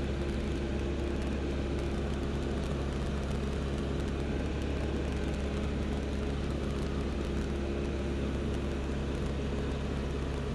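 L-13 Vivat motor glider's piston engine and propeller running steadily in flight, heard from inside the cockpit as an even drone with a deep hum.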